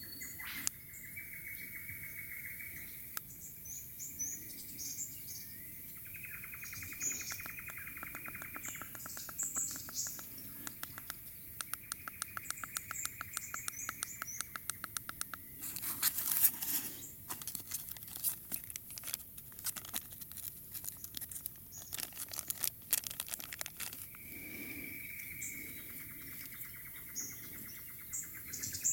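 Birds calling: long, fast trills held at one pitch, with short higher chirps over them. A run of sharp clicks and taps comes through the middle as small items are handled.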